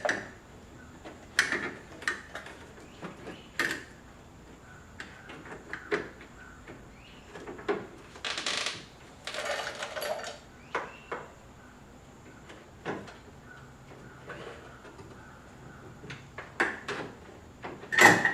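Scattered clicks, taps and knocks of hands working the metal linkage rods and plastic clips inside a pickup truck's door panel while fitting a door lock actuator and latch, with a couple of longer scraping rustles about halfway through.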